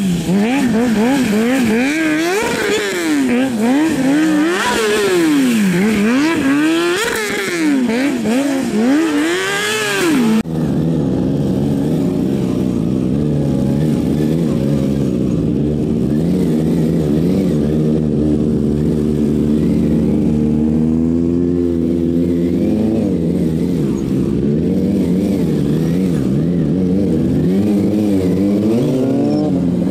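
Sport motorcycle engine revving hard, its pitch swinging quickly up and down, with a hiss over it. About ten seconds in it changes abruptly to steadier held revs that rise and fall slowly, climbing again near the end, as the bike is ridden through wheelies.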